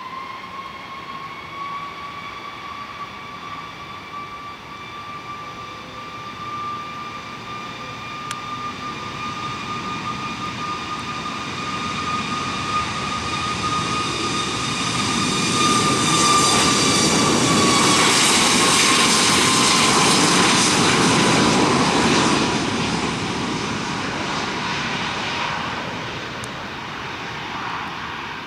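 Boeing 737 MAX 8's twin CFM LEAP-1B turbofans spooling up to takeoff thrust: a rising whine that levels into a steady high tone, growing into a loud roar as the jet rolls past on its takeoff run. The whine then drops in pitch and the roar fades near the end.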